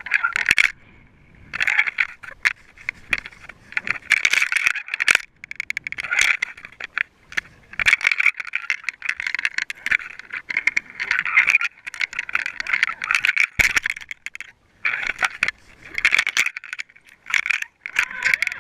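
Irregular rattling, clicking and scraping picked up by a GoPro in its waterproof housing underwater, coming in short bursts about once a second.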